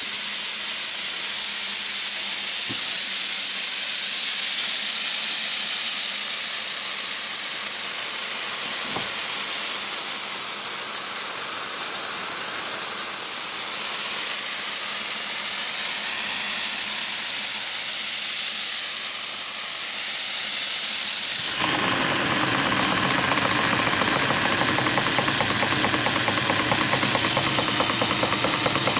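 Steam hissing from a small model vertical boiler setup, swelling louder in three surges. About two-thirds of the way through the sound changes abruptly to the fast, even beat of a small model steam engine running.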